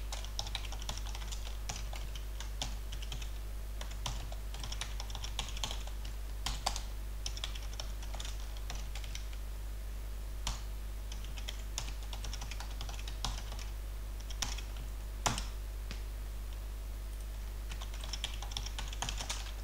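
Computer keyboard being typed on in short bursts of keystrokes, with a few single louder clicks between the bursts. A steady low hum runs underneath.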